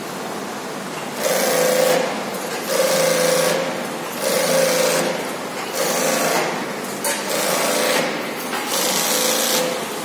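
Duke industrial sewing machine stitching a fibreglass filter bag in short runs: about six bursts of stitching, each about a second long, with short pauses between. A steady hiss continues underneath during the pauses.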